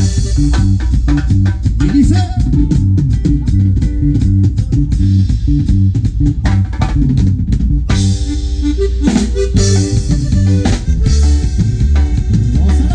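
Band music with a drum kit and bass keeping a steady beat, and guitar.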